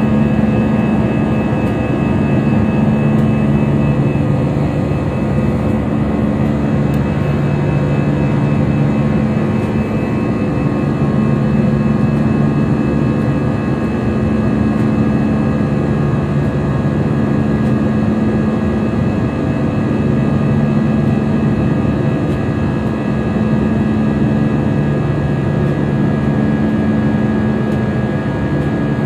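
Jet airliner's engines and airflow heard from inside the cabin during the climb after take-off: a loud, steady rush with a low hum that swells and fades every couple of seconds.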